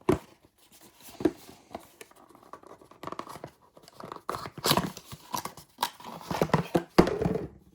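Hands handling paper and plastic packaging and airsoft gun parts: irregular rustling with short clicks and knocks, one sharper knock near the end.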